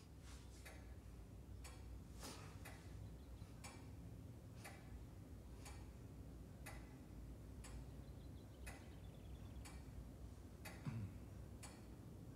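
Faint, slow ticking of a clock, about one tick a second. A short low sound comes about eleven seconds in.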